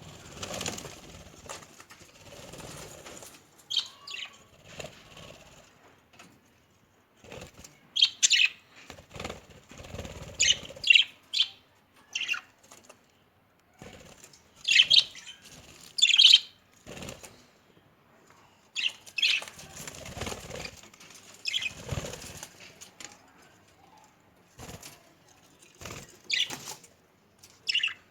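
Budgerigars in a cage giving short, scattered chirps, mixed with bursts of wing flapping and fluttering.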